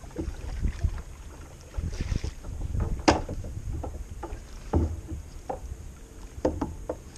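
Kayak paddle knocking and clunking against the kayak and its gear as it is set down across the boat, with the sharpest knock about three seconds in. Wind rumbles on the microphone throughout.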